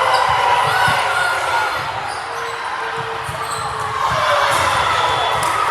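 Players and spectators shouting and cheering in a sports hall during a volleyball rally, over repeated dull thuds of the ball and feet on the court. The voices are loudest at the start, dip in the middle, and rise again about four seconds in.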